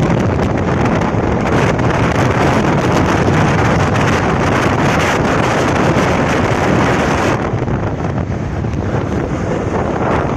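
Strong wind blowing in a dense, steady rush, easing in its higher part about three-quarters of the way through.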